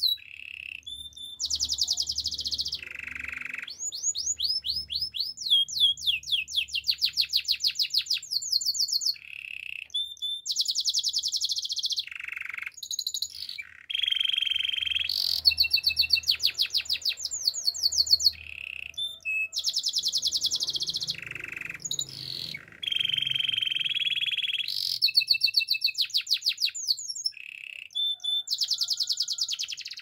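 White canary singing a long, loud song. Fast trills of rapidly repeated high chirps alternate with steady whistled rolls held for a second or two, with short pauses between phrases.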